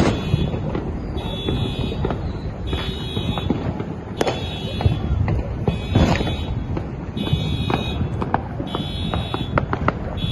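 Neighbourhood fireworks going off: many sharp pops and crackles, a few louder bangs among them. An electronic alarm beeps in short bursts that repeat every second or so.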